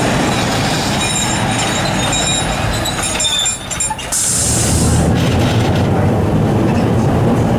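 A Peter Witt-style tram rolling past close by, its wheels running on the rails with thin, faint high squeals. About four seconds in the sound changes to the steady low rumble of riding inside a tram as it runs along the street.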